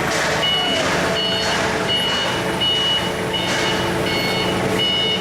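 Repeating electronic warning beeper, a high beep sounding about once every three quarters of a second, over a steady hum of factory machinery.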